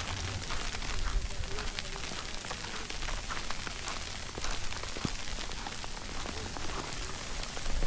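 Heavy snowstorm: a steady hiss of falling snow, with many small irregular ticks.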